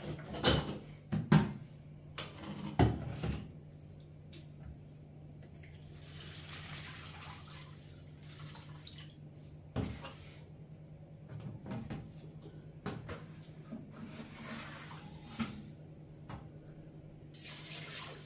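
Rice being washed by hand in a stainless steel pot: a few sharp metal knocks of the pot in the first few seconds, then several spells of water swishing and pouring.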